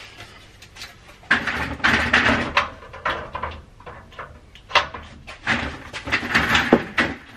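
A radiator being lowered onto a fan frame and fitted over its mounting bolts: metal scraping and clunking in two bursts, the first about a second in and the second near five seconds in.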